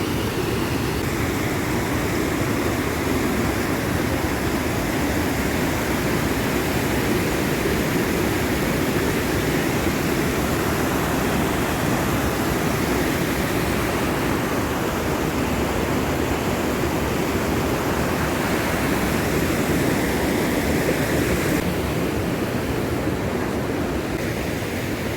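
Steady rush of water from a waterfall pouring down, an even, unbroken noise with no pauses.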